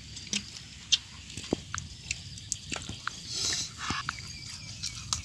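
Scattered small clicks and cracks of cooked crab being broken apart and picked at by hand while eating, with some rustling about three and a half seconds in.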